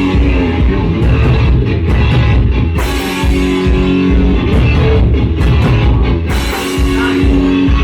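Live rock jam: electric guitar played over a drum kit, loud and continuous.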